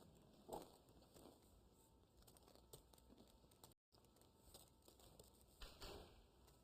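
Near silence: faint room tone with a few soft, scattered clicks and rustles, and a brief total dropout of the audio a little under four seconds in.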